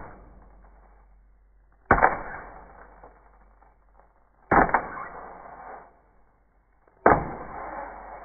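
A wooden spoon whacks a slab of ice floating in a water-filled bucket, trying to break it. There are three hard strikes about two and a half seconds apart, each dying away over about a second.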